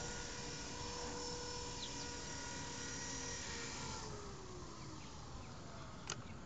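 Small electric RC helicopter (Honey Bee CP2) hovering: a steady whine of motor and rotor at several even pitches. About four seconds in the whine fades and a lower tone slowly falls in pitch as the rotor slows, and a sharp click comes near the end.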